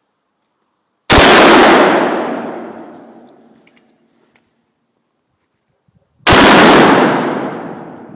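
Two sniper rifle shots about five seconds apart. Each is a sudden, very loud crack that rings out and dies away over two to three seconds.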